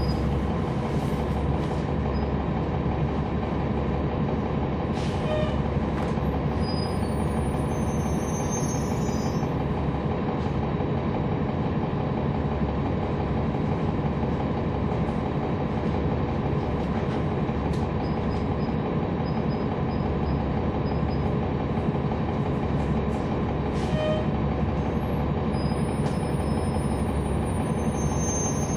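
Cummins ISL9 inline-six diesel engine of a NABI 416.15 transit bus running steadily, heard inside the cabin from the back seat. Two short tones sound about 19 seconds apart, and faint high squeals come and go.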